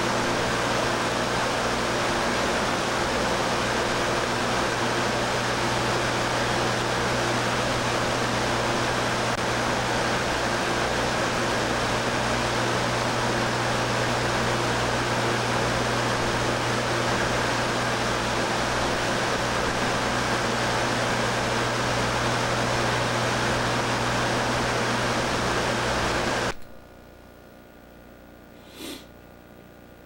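Steady rush of water flowing through a laboratory scale model of a vortex drop structure and its pipes, with a constant low hum. It cuts off abruptly about 26 seconds in.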